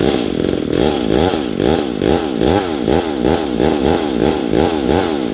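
McCulloch 797 two-stroke chainsaw engine on an 895 gear-drive chassis running at idle, its pitch wavering up and down about twice a second.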